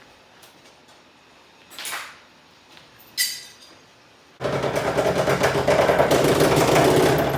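Two short knocks, the second with a brief metallic ring, then a power tool starts abruptly about four seconds in, runs loudly and steadily for about three seconds, and stops.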